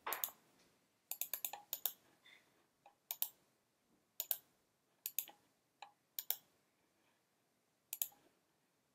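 Short, sharp computer mouse clicks, a few at a time with quiet gaps between them, about a dozen in all, as on-screen menus are opened and a value is copied and pasted.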